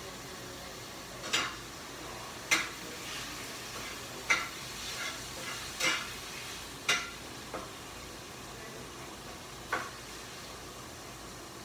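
Hands slapping against each other, about seven sharp slaps at irregular intervals over a faint steady hiss.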